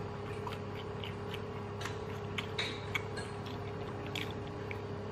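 Close-up eating sounds from a mouthful of rice and chili tempeh eaten by hand: scattered small clicks and smacks of chewing and fingers in the rice. They are thickest in the middle of the stretch, over a steady low hum.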